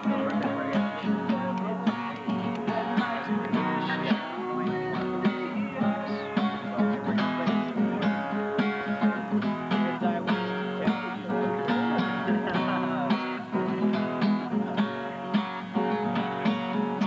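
Acoustic guitar strummed and picked in a steady rhythm.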